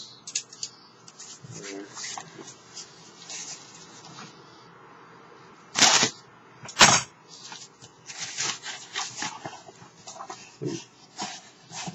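Cardboard shipping box being cut open with scissors and handled: scraping, snipping and cardboard rustling, with two loud knocks about six and seven seconds in.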